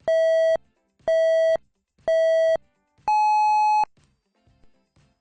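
Electronic countdown beeps: three short beeps about a second apart, then one longer, higher beep, the usual signal that something is about to start.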